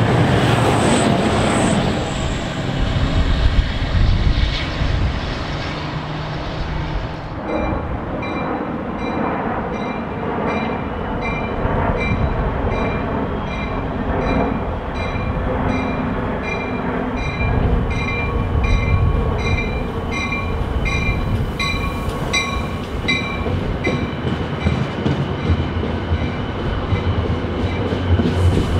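A passenger train rumbling and clattering past at the start, its ALP-45 locomotive going by last. Then a locomotive bell rings steadily, about twice a second, as another train approaches. Near the end come the rumble and wheel clatter of rail cars rolling along the platform.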